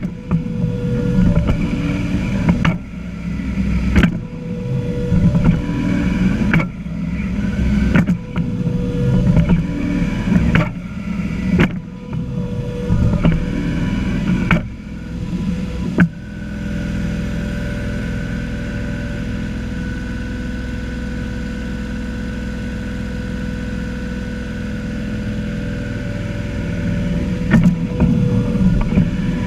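John Deere 1025R compact tractor's three-cylinder diesel engine running close by, uneven in level and broken by several sharp knocks and rattles through the first half. From about halfway it settles into a smooth, steady drone, then turns uneven again near the end.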